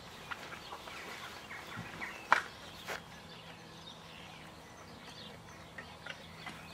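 Garden ambience with faint, scattered bird chirps. A sharp click comes a little over two seconds in and a softer one about half a second later, and a faint steady low hum comes in about halfway.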